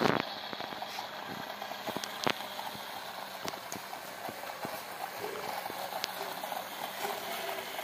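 Small battery-powered DC motor of a home-made toy car running as it drives over rough ground: a faint steady hum under a crackly rolling noise, with scattered clicks from the wheels over grit, the sharpest a little over two seconds in.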